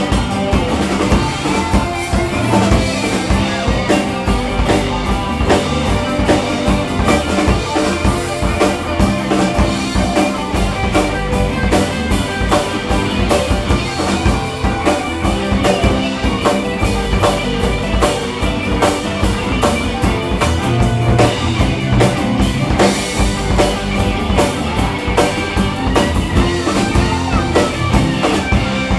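A live alt-country rock band playing a song at full volume: electric guitars, an acoustic guitar, bass guitar and a drum kit keeping a steady beat.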